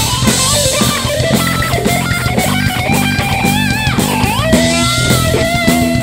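Live rock band playing an instrumental passage: an electric guitar lead with bent, held notes and slides through the middle, over electric bass and a drum kit keeping a steady beat.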